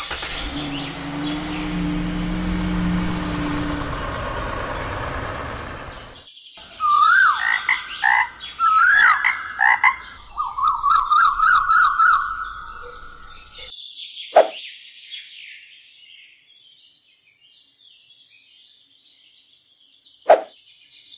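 A steady noise with a low hum for the first six seconds, then a run of quick, repeated rising chirping animal calls. Fainter high chirps follow, broken by two sharp clicks.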